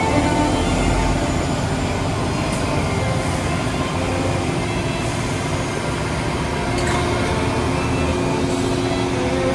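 Diesel engines of a heavy-haul convoy running steadily as its long multi-axle trailer rolls slowly past.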